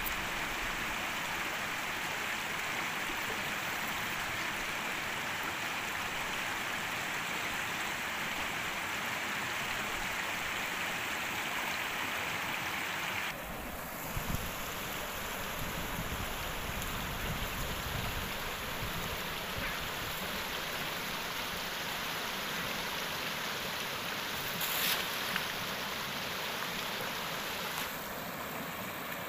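Steady rushing water noise, with an abrupt change in its sound about thirteen seconds in and a couple of brief knocks.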